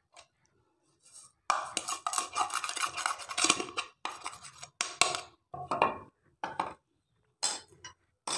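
A plate scraping and knocking against another plate as ground spices are tipped and shaken off it: one long scrape of about two and a half seconds, then several short scrapes and knocks.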